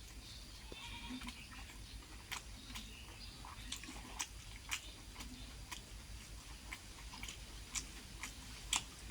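A person chewing a mouthful of rice and egg curry, with wet mouth clicks and smacks scattered irregularly, a few a second.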